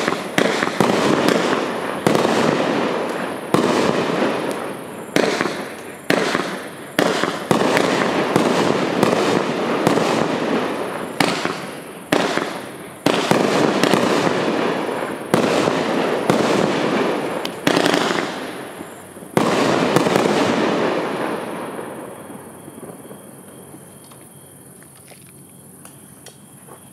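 Multi-shot consumer firework cake firing shot after shot, one every second or two, each followed by a dense crackling tail that dies away. After about twenty seconds the shots stop and the sound fades out.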